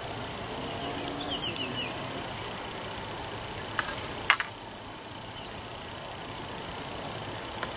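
Steady high-pitched drone of insects in the riverside vegetation, with one sharp click about four seconds in as the long fishing rod is cast.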